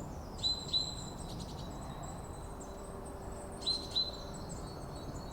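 Birdsong: two pairs of short, sharp chirps, one pair about half a second in and another near four seconds, over faint high twittering and a steady soft hiss.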